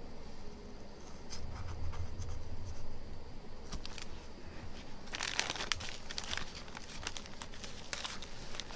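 Plastic knife prying and scraping between a cracked iPhone 6 Plus front glass and its LCD, with irregular crackling and tearing as the glue layer gives way, densest about five seconds in.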